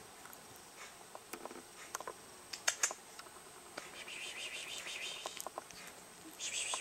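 Faint scattered clicks and soft rustling, a few sharper ticks about two to three seconds in and a hiss-like rustle later on: handling noise from a puppy and a hand moving on a fleece blanket.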